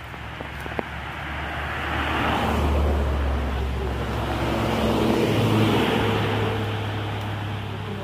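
Motor vehicles passing on a road close by, a low engine hum with tyre noise that swells twice, about two to three seconds in and again around five to six seconds in, then fades.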